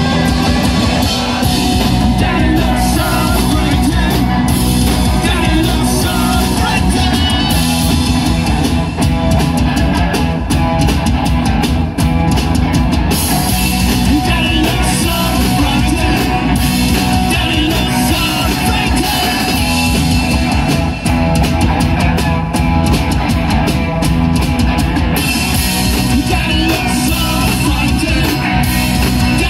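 Rock band playing live: electric guitars and a drum kit, with no break in the playing.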